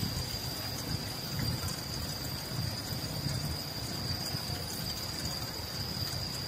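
Bicycle rolling over a wet, rough concrete road: an uneven low rumble of the tyres and bike jolting over the surface, with a thin steady high-pitched tone above it.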